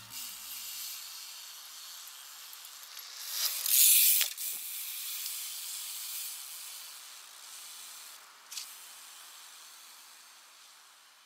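A high hiss slowly fading out, with a loud whoosh about four seconds in and a short swish a little over eight seconds in.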